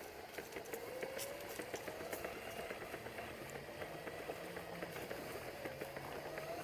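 Footsteps on a trail, a steady run of small crunches and clicks, over a faint low hum in the background.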